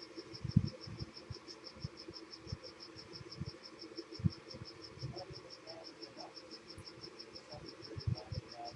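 Faint high-pitched chirping, evenly pulsed several times a second like a cricket, with scattered soft low knocks.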